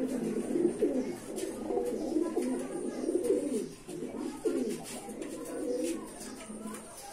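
Domestic pigeons cooing: low, rolling calls repeating with only short breaks.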